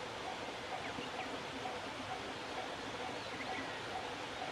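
Level-crossing warning bell ringing faintly, evenly about twice a second, over a steady outdoor hiss, with a few bird chirps.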